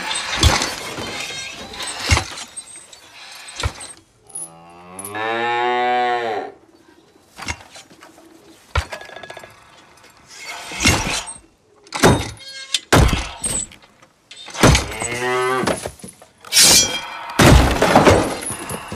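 A cow moos once, a long call that rises and then falls in pitch, among repeated sharp cracks and clattering knocks.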